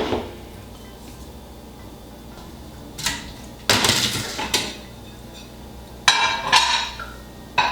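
Ceramic dishes clattering: a plate and a mug clink and knock in a few separate bursts as they are set down and moved.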